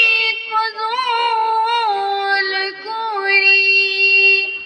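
A girl singing solo without accompaniment, a slow melodic line with bending notes; near the end she holds one long steady note before it fades out.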